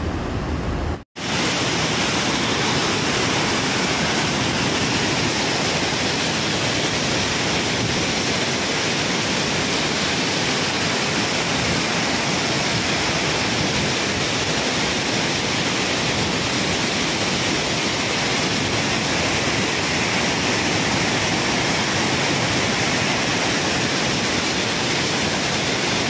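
A waterfall pouring over rocks: a loud, steady, unbroken rush of falling water. About a second in the sound cuts out for a moment, and a different steady noise comes before the cut.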